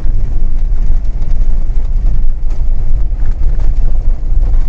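Inside the cab of an Iveco camper van driving on a dirt gravel road: a loud, steady low rumble of engine and tyres on the unpaved surface, with a few faint rattles.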